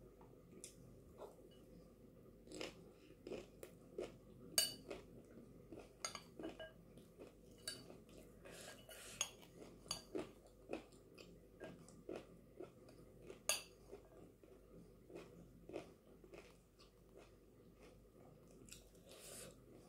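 Close-up chewing and crunching of chana chatpate (dry Wai Wai noodles, nimki, soaked chickpeas and peas), with a metal spoon clinking and scraping in a glass bowl. There are many small clicks, and a couple of sharper clinks about four seconds in and again near thirteen seconds.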